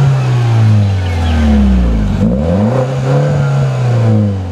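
2013 MINI Cooper S Paceman's turbocharged 1.6-litre four-cylinder heard at the tailpipe, revved up and let fall back twice, its pitch rising and falling with each rev.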